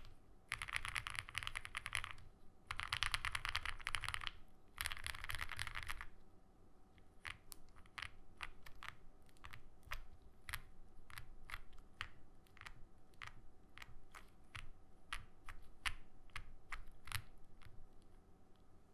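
Typing on an Owlab Spring keyboard with lubed 43 Studio OPBlack switches in an aluminum full plate and GMK keycaps. For about six seconds come three quick rolls of keystrokes across a row of keys. After that come single keystrokes, spaced apart, until near the end.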